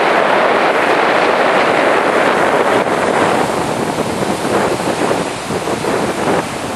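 Strong sea wind buffeting the microphone, a loud steady rush with surf on the beach underneath. The rush eases briefly about five and a half seconds in.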